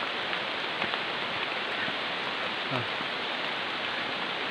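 Heavy rain falling steadily, an even hiss of rain with no break.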